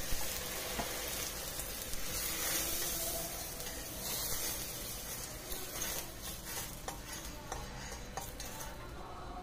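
Fried onions and oil in a steel pot sizzling and bubbling hard with a little water added, while a metal spatula stirs and scrapes against the pot. The sizzle is strongest a few seconds in and eases somewhat later, with several sharp spatula clicks on the metal.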